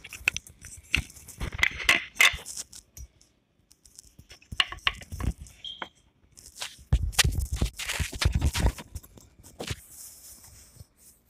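Irregular rustling, scraping and knocking from hands moving things about on a wooden table top, with the loudest cluster of thumps and scrapes a little past the middle.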